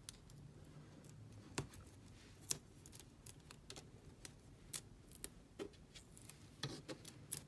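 Faint, scattered clicks and taps of fingers and fingernails on a plastic lash case as double-sided tape is pressed down inside it.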